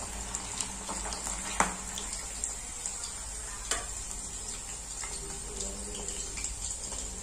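Hot oil sizzling steadily around marinated chicken pieces deep-frying in a kadai, the chicken now fried through and being lifted out, with a few sharp clicks.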